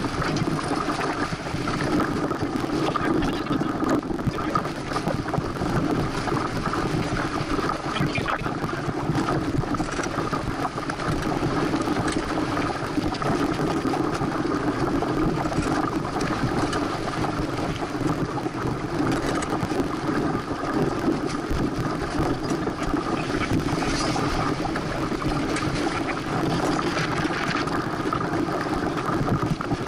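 Steady rush of wind and water from a Santana 525 sailboat under way, its hull moving through the water and wind blowing across the microphone.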